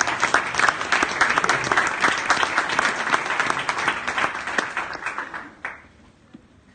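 Audience applauding: dense clapping from many hands that dies away near the end.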